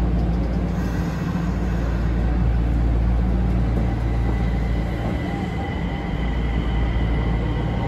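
Nagoya Municipal Subway 5050 series train running, heard from inside the car: a steady low rumble of the train under way, with a faint thin high tone coming in about four seconds in.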